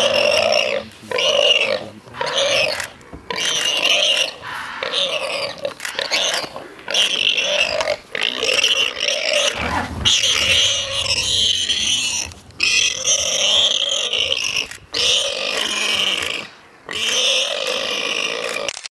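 Warthog squealing in distress over and over while a leopard holds it down: loud long squeals, one after another with short breaks between them.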